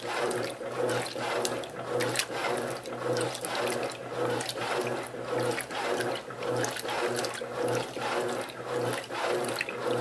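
Electrolux Silent Control LAC12 top-load washing machine agitating a full tub of towels and bedding on turbo agitation: water sloshing and churning in a steady rhythm, about two surges a second, over a low steady motor hum.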